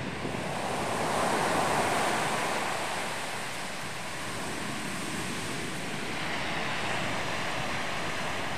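Ocean surf breaking on the shore and around rocks: a steady rushing wash of waves that swells louder about a second in as a wave crashes, then settles.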